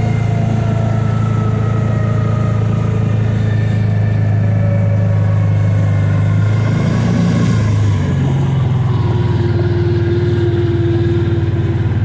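Kawasaki Teryx side-by-side's engine running steadily under way, its note wavering and settling lower about seven to eight seconds in.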